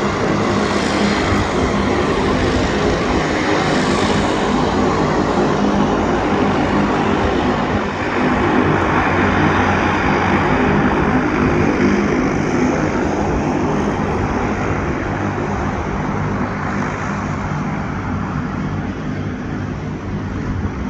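De Havilland Canada Dash 8-100's twin Pratt & Whitney Canada PW100-series turboprops running at taxi power: a steady propeller drone with a low hum under a broad engine hiss.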